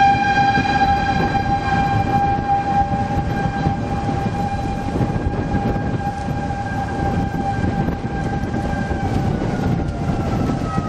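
Outdoor tornado warning siren sounding one long steady tone. About nine seconds in its pitch begins to slide down as it winds down. Wind buffets the microphone underneath.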